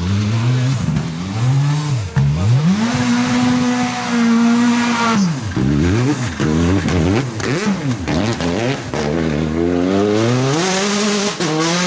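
Rally car engine at full throttle, climbing and holding high revs, then cutting off sharply about five seconds in. It follows with a quick series of rises and falls in revs and climbs again near the end as the car pulls away.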